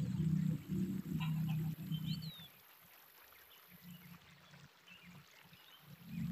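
A steady low hum that cuts off about two seconds in, followed by quiet outdoor background with a few faint bird chirps.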